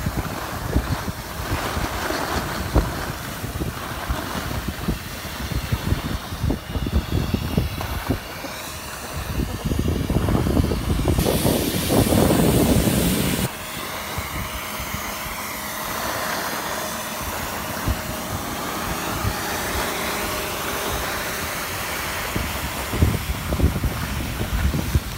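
Skis scraping and chattering on packed snow, with wind noise on the microphone. A snowmaking gun adds a hiss and a faint hum; the hiss turns loud for about two seconds midway, then drops off suddenly.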